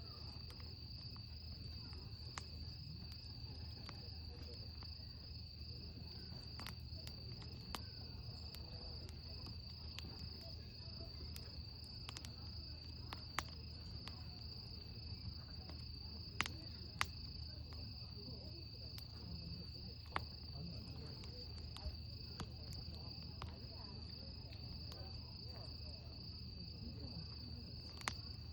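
Wood fire crackling, with sharp pops scattered irregularly through it, the loudest a handful of cracks. Behind it, crickets chirp in a steady, high, rapidly pulsing trill, over a low steady hum.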